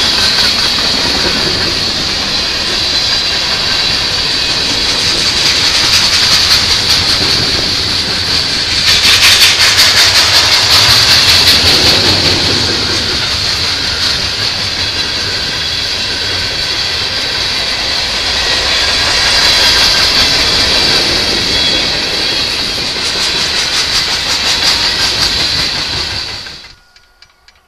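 Freight cars of a passing train, tank cars, covered hoppers and coil cars, rolling by close up with steady wheel and rail noise and a high hiss. Wheels clickety-clack over rail joints in quick runs, loudest about a third of the way in. The sound cuts off abruptly near the end.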